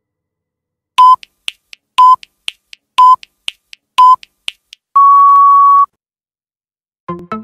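Electronic countdown timer beeping: four short beeps a second apart with faint ticks between them, then one long, slightly higher beep of about a second, marking the end of the rest period.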